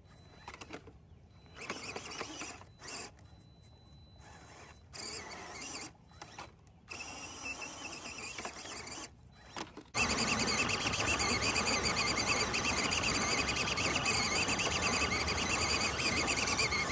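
A small RC crawler truck's electric motor and gear drive whine steadily as it drives, starting suddenly about ten seconds in. Before that there are only faint scattered scuffs and clicks.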